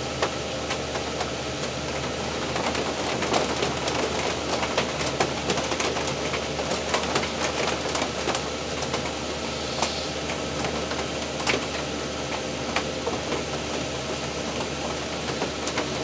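Diesel air heater running while still warming up, not yet properly at temperature: a steady hum from its combustion fan and burner, with scattered sharp clicks.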